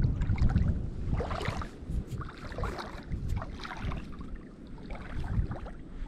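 Feet wading through ankle-deep seawater, a string of irregular sloshing splashes with each step, over a low rumble of wind on the microphone.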